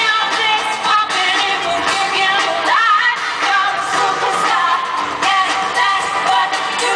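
Loud live pop concert music with a melodic vocal line that bends and slides in pitch, swooping upward about three seconds in.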